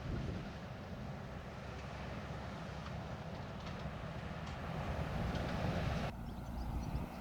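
Low, steady rumble of a passing vessel's diesel engine, with a hiss over it that cuts off abruptly about six seconds in.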